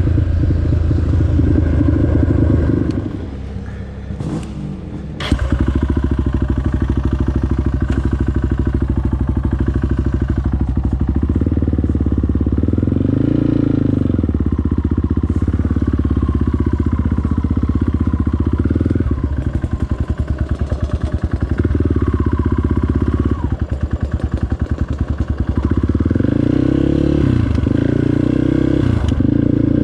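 Off-road motorcycle or quad engine running steadily while riding, its pitch rising and falling with the throttle. It drops off briefly a few seconds in, then picks back up with a sharp knock.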